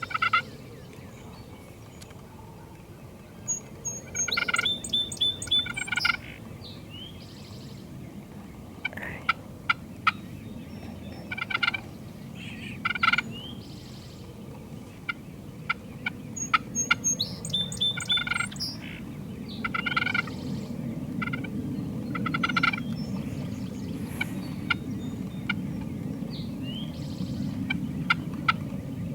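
Wild turkeys gobbling and calling again and again, with rattling bursts about four seconds in and again about sixteen seconds in, over a steady low background rush.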